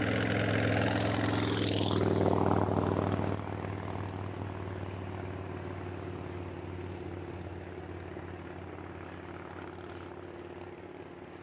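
An engine's steady hum, loudest about two to three seconds in, then fading away slowly as it passes off into the distance.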